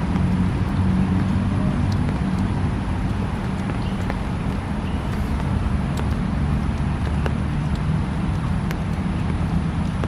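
Steady low rumble of road traffic, with a few faint ticks.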